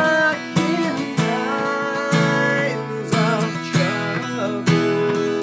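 A man singing a worship song while strumming an acoustic guitar in steady strokes.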